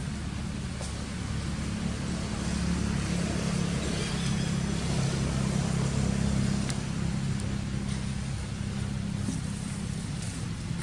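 Low, steady rumble of a motor vehicle's engine. It grows louder a couple of seconds in and eases off again toward the end.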